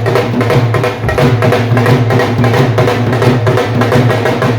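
Several dhol drums played together in a fast, driving rhythm of dense strokes, loud and continuous.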